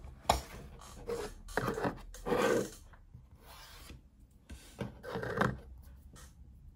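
Handling noises: plastic items of a blood glucose testing kit rubbed and slid on a wooden desk in several rasping strokes, with a sharp click just after the start.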